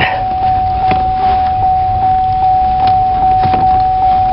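GMC Canyon's warning chime sounding on and on: one steady electronic tone that pulses about two and a half times a second. A few faint clicks come through underneath it.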